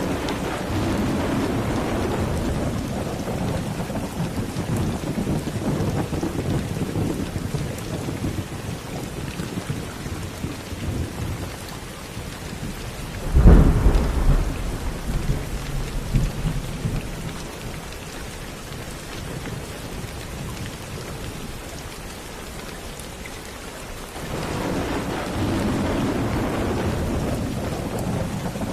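Steady rain with rolling thunder. There are long low rumbles at the start and again near the end, and a sharper, loudest thunderclap about halfway through.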